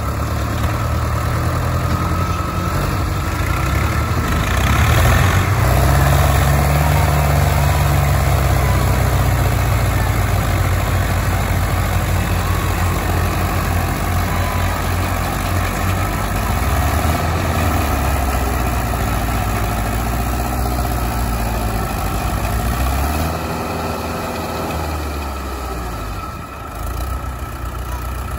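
Several tractor diesel engines running hard together under heavy load, pulling a sugarcane-laden trailer stuck in mud. The engine note rises about four seconds in, holds, and eases off near the end.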